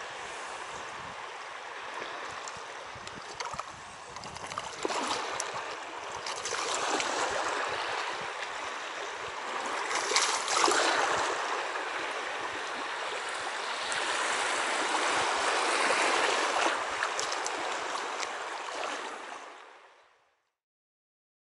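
Small waves lapping and splashing in the shallows of Pamlico Sound, swelling and easing every few seconds. The sound fades out near the end.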